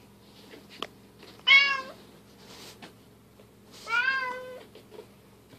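Bengal cat meowing twice: a short, loud meow about a second and a half in and a longer, wavering one about four seconds in.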